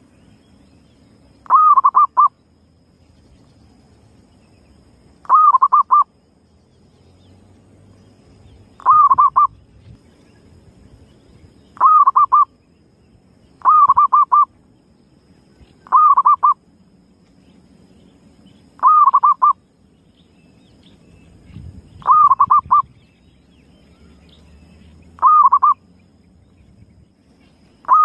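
Zebra dove (perkutut) cooing as a lure call: a short rolling phrase of rapid notes, repeated about nine times at uneven gaps of two to four seconds.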